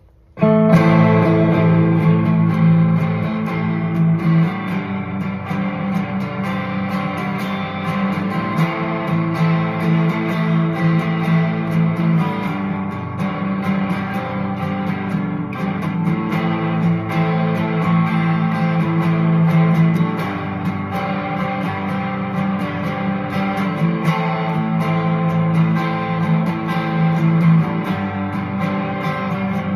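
Instrumental guitar intro of a grunge/garage-rock song: strummed guitar chords repeating in a steady pattern, starting abruptly about half a second in.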